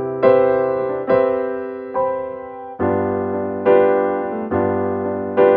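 Soft piano music: slow chords struck about once a second, each ringing out and fading before the next.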